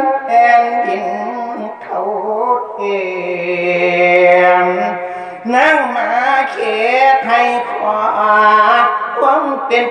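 A Thai Buddhist monk singing a verse (klon) solo into a microphone, in long, drawn-out melismatic notes that waver in pitch. There are short breaths about two seconds in and again past the middle.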